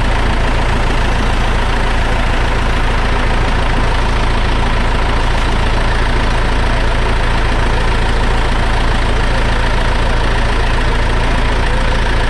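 Fire engine's diesel engine running steadily close by, a constant deep drone with a steady whine in it.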